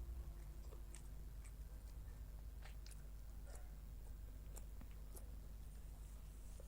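A person chewing food close to the microphone: irregular soft mouth clicks over a faint steady low hum.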